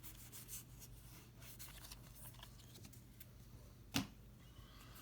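Faint rustling and light ticks of a Pokémon booster pack and trading cards being handled, with one sharp click about four seconds in.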